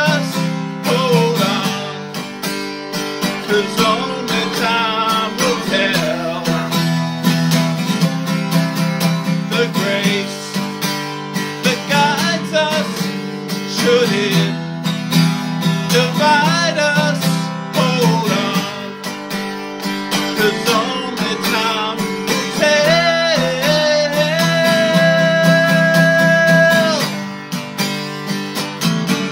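A man singing to a strummed acoustic guitar, holding one long note near the end.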